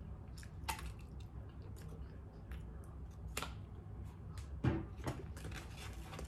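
Plastic squeeze bottle of yellow mustard squelching as it is squeezed onto a hot dog, with scattered small clicks and one louder thump about two-thirds through.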